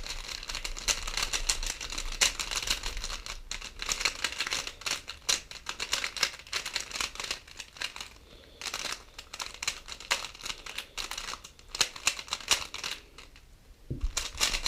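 Plastic non-magnetic budget 3x3 speedcube being turned quickly by hand: a fast run of clicking, clacking layer turns, with short pauses about eight and thirteen seconds in.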